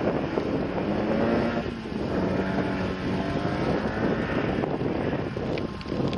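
Classic Mini's Rover 1.8 VVC four-cylinder engine accelerating hard away from a standing start, rising in pitch in one gear and breaking off at a gear change about two seconds in before pulling again. Heavy wind noise on the microphone.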